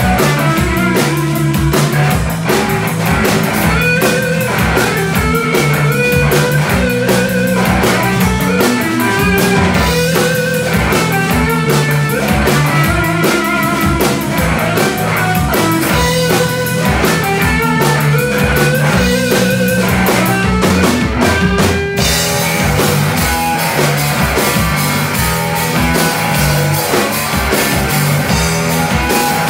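Live blues rock trio playing: electric guitar lines over bass and drum kit. The playing shifts to a different texture about two-thirds of the way through.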